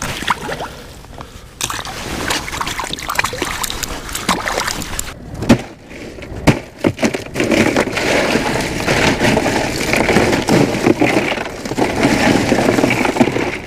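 Water sloshing and splashing as a freshly bled king salmon is handled, then the clatter and rattle of ice cubes shifting in a plastic cooler as the fish is packed in, with a few sharp knocks along the way.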